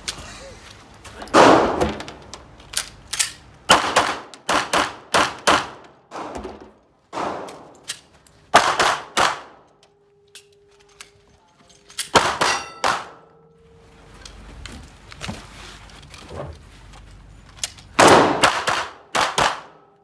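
Handgun shots fired in quick strings, several shots close together with short pauses between strings and a longer pause about halfway through, each shot with a short metallic ring in an indoor range lane.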